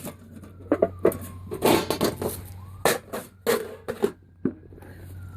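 Irregular knocks and scuffs, about a dozen, with a faint siren gliding down in pitch in the background through the second half.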